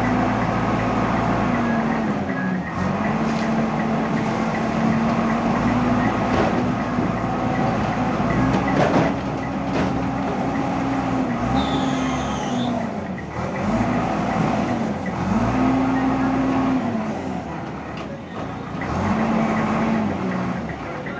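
Heavy diesel engine running and being revved up and down repeatedly, its note sagging and recovering about every one to two seconds, with a brief high squeal near the middle.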